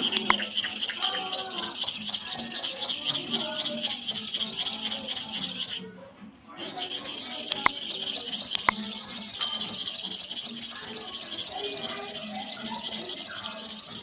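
Barber's clipper blade rubbed rapidly back and forth on an abrasive sharpening surface, a fast continuous scraping that stops briefly about six seconds in. The blade is being ground and polished to bring back a shine on its worn face. A few sharp clicks come near the middle.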